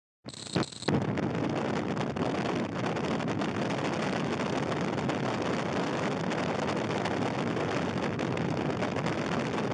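Wind rushing over the microphone of a camera mounted on a moving motorcycle at highway speed: a steady, even rush of air noise that cuts in suddenly just after the start.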